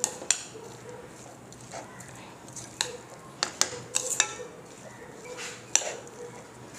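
A spoon stirring sprouted green gram and coconut in a metal pot, knocking and scraping against the pot with irregular clinks, some leaving a short ring.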